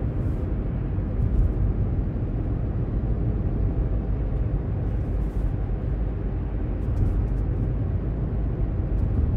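A car being driven, with a steady low rumble of road and engine noise heard from inside the cabin.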